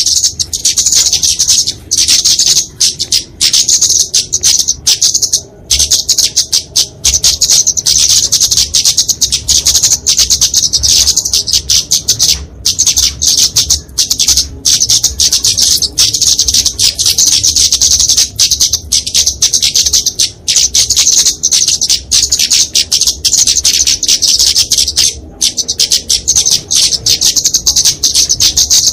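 Flowerpecker (kemade) giving rapid, high-pitched fighting calls: a dense stream of sharp chips with only brief pauses. These are the bird's aggressive territorial calls.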